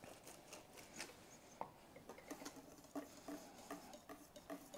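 Faint light ticks of a wire whisk against a stainless steel mixing bowl, whisking hollandaise sauce. The ticks come about three a second in the second half.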